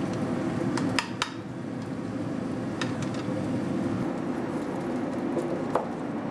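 A chef's knife slicing through a bacon-wrapped chicken roulade on a wooden cutting board, with a few short, sharp crunches and clicks as the blade cuts through the crispy bacon and strikes the board. A steady mechanical hum, like a kitchen fan, runs underneath.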